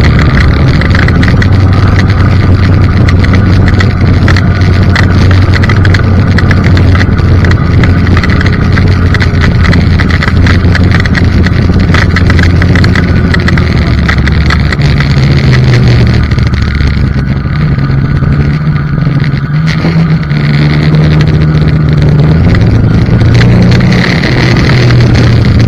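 Polaris snowmobile engine running under way, heard from the rider's seat. Its note holds steady for the first half, then shifts and wavers as the sled slows down.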